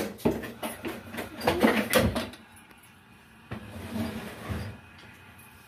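Clattering knocks and bumps of a metal cooking pot being handled and set down, loudest in the first two seconds, then softer handling sounds about three and a half seconds in.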